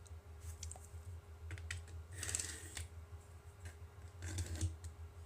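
Faint light clicks and a brief scratchy scrape about two seconds in, small hand-work sounds of a pencil and marking tool on a rocket booster tube, over a steady low hum.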